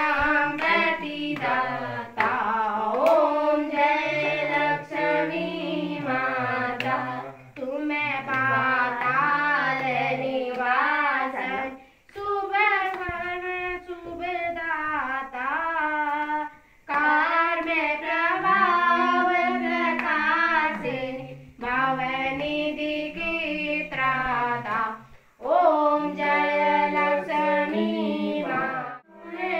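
Women's and children's voices singing a Hindu aarti hymn together in phrases with brief pauses between them, with hands clapping along.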